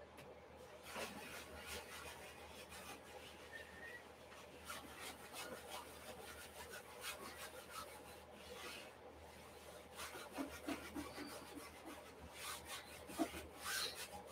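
Acrylic paint being scrubbed onto a stretched canvas by hand: faint, irregular scratchy rubbing strokes, coming thicker toward the end.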